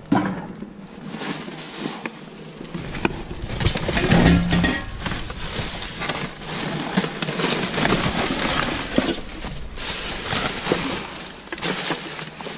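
Rubbish in a dumpster being rummaged and dragged: plastic bags and wrappers rustling and crinkling, with scattered clicks and knocks of cans and packaging.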